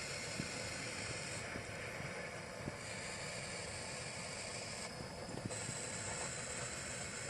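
Blowtorch flame hissing steadily while heating a rust-seized wheel on a lawn tractor axle. The high part of the hiss thins out twice for about a second, and there are a few faint ticks.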